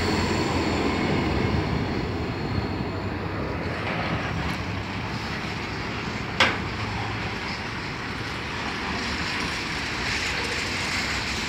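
Trains passing: a class 158 diesel unit pulling away, then a container freight train's wagons rolling steadily past on the rails, with one sharp clank about six seconds in.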